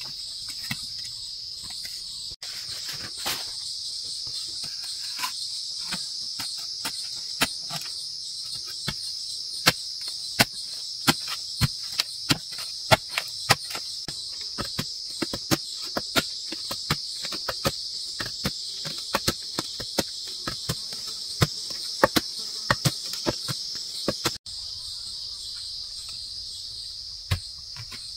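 Steady high-pitched insect chorus, like crickets, with a rapid, irregular series of sharp knocks or taps over it that stops a few seconds before the end.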